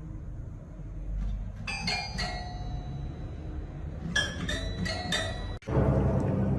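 Short bell-like chiming tones in two quick clusters over a low background rumble, then a sudden break near the end and a louder, steadier sound.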